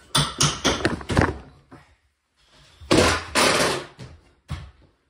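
Long wooden boards knocking and clattering as they are picked up and handled, a quick run of knocks in the first second, then a longer scraping noise about three seconds in and a few light clicks after.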